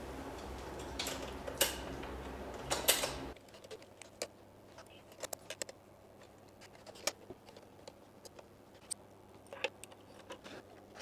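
Small metal clicks and taps of rods, brackets and clamp fittings being handled and fastened by hand as a rack is assembled onto a scooter. For the first three seconds or so the clicks sit over a steady low hum, which drops away suddenly; after that, scattered light ticks go on over a quiet background.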